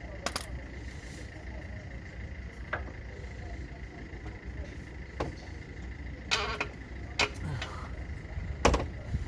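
Scattered knocks and clinks of tools and parts during hands-on work on a Suzuki Jimny's rear axle and suspension, over a steady low rumble; a short rattling run comes past the middle and the loudest knock near the end.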